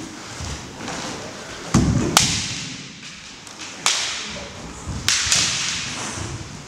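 Bamboo kendo shinai striking in a sparring exchange: sharp cracks about two seconds in, again about four seconds in, and a quick pair about five seconds in, each with a short ring of the hall. A heavy thud comes just before the first crack.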